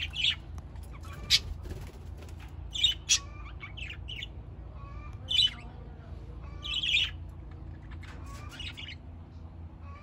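A flock of budgerigars chattering: loud, sharp squawks every second or two over a soft, continuous warble.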